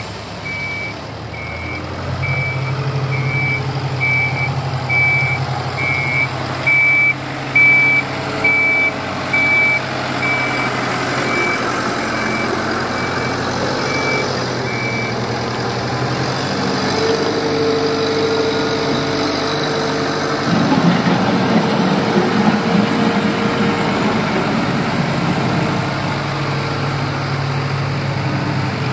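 Tata Terex TL 340 wheel loader's diesel engine running, with a reverse alarm beeping about one and a half times a second through the first half. About twenty seconds in the engine sound turns louder and rougher for a few seconds.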